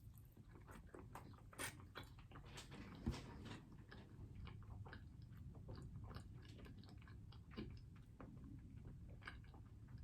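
Faint, close-up chewing of a mouthful of battered fried fish, with soft wet mouth clicks and smacks throughout and a sharper click about three seconds in.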